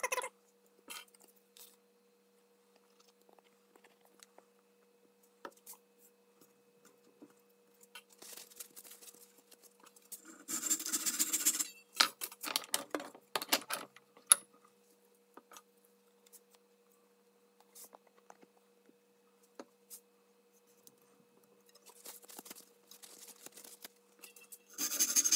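Hand handling of wood at a bench vise as a thin walnut spline is fitted into the glued slot of a mitered oak frame corner. Scattered light clicks and taps with long quiet gaps, short scraping rubs about ten to thirteen seconds in, and a sharp knock about fourteen seconds in.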